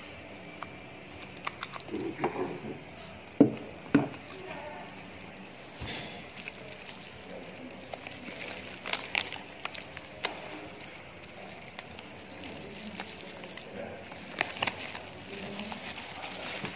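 Plastic packaging and bubble wrap rustling and crinkling as a metal ignition-switch assembly with its wiring harness is handled and set down, with scattered clicks and two sharp knocks a few seconds in.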